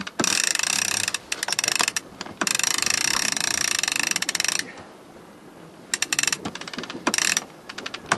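Sailing-yacht cabin-top winch ratcheting as its handle is cranked: rapid pawl clicking in two long runs, then shorter bursts near the end.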